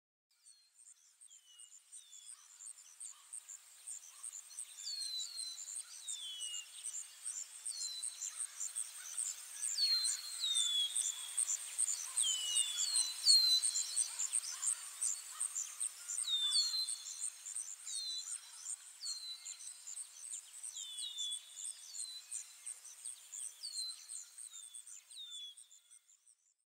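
Outdoor nature ambience: a steady, pulsing high-pitched insect trill with repeated short, downward-sliding bird calls, often two or three in quick succession. It fades in over the first seconds and fades out near the end.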